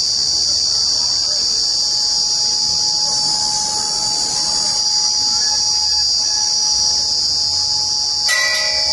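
A hanging temple bell is struck once near the end and rings with several clear tones. A steady, high shrill of insects runs throughout and is the loudest sound.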